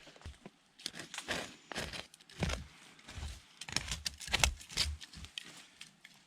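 Irregular rustling and crackling with light knocks and snaps, coming in quick clusters, like brush, twigs or gear being handled and stepped on.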